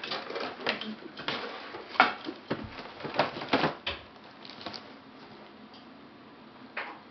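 A cat scrabbling at a wall and shifting on a cardboard box: a run of short claw scrapes and cardboard rustles over the first four seconds, then one more scrape near the end.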